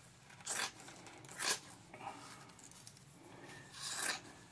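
Sharp carbon-fiber scissors snipping through carbon fiber cloth, three separate cuts as excess fabric is trimmed off a mold.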